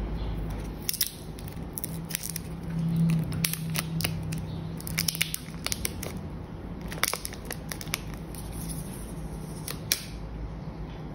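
Thin plastic protective wrap being peeled and pulled off an Apple Pencil, crinkling in irregular clusters of sharp crackles.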